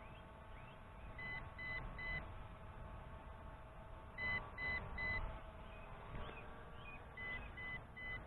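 Low-battery warning of the MJX Bugs 5W drone's radio controller: short high beeps in groups of three, repeating about every three seconds. The alarm signals that the flight battery is running low.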